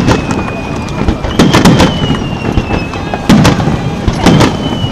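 Aerial firework shells bursting in a display: about six sharp bangs in under five seconds, some in quick succession, with a faint high tone sliding slowly down between them.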